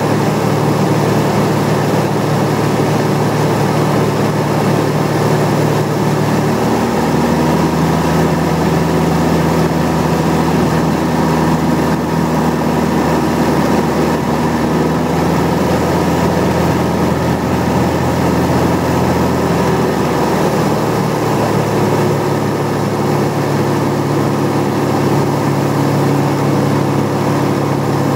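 Light single-engine aircraft's piston engine and propeller droning steadily, heard from inside the cockpit. The engine note changes pitch about six seconds in and again around twenty seconds in.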